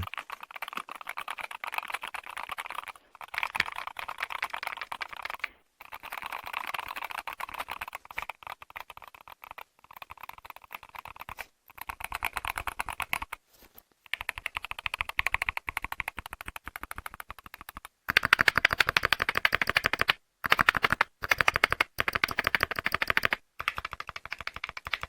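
Typing test on a 75% all-aluminium mechanical keyboard with dual-track magnetic switches: rapid, crisp key clicks in stretches of a few seconds, broken by short pauses. The typing gets louder about three-quarters of the way through.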